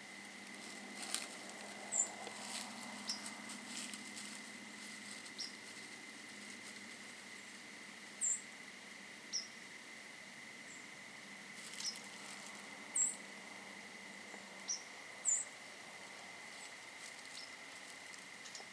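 Virginia opossum shuffling through dry fallen leaves, a faint crackly rustling. Short high chirps every second or two are the loudest sounds.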